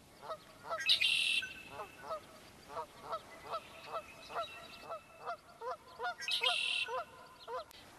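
A flock of geese honking: a long run of repeated honks, roughly two a second, overlapping and uneven. Twice, about a second in and again about six seconds in, another bird breaks in with a louder, higher, shorter call.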